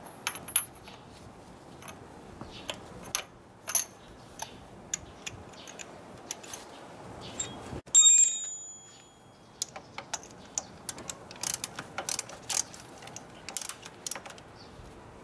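A spark plug socket wrench and other metal tools clicking and clinking irregularly on the engine while a spark plug is loosened. Just past halfway comes one sharp metallic clink that rings for about a second.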